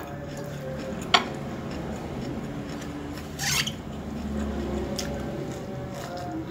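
Someone eating rice by hand from a plate: fingers working the food on the plate and chewing, with a sharp click about a second in and a short rough scraping crunch a little after the middle, over a steady low hum.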